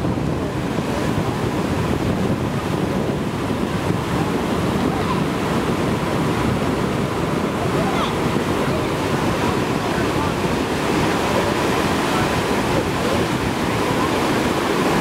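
Steady rushing of whitewater pouring through a river wave feature.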